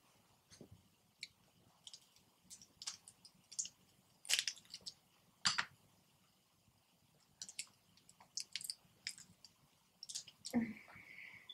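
Crab legs being cracked and snapped apart by hand: a scattered series of sharp shell cracks and clicks at an irregular pace. A short voiced sound comes about a second before the end.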